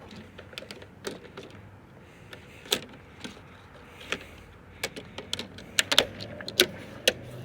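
Sharp plastic clicks and taps, a dozen or so, coming thicker in the second half: plastic trim retaining clips and a trim panel being pressed back into place on a car.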